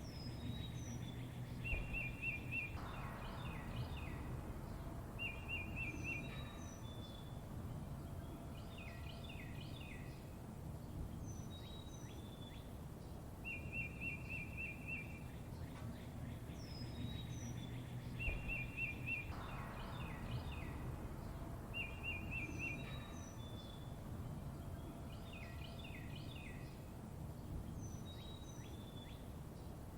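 Songbirds calling over a steady low background rumble: short rapid trills, high downslurred whistles and quick runs of falling notes, the same sequence of calls repeating about every 16 seconds.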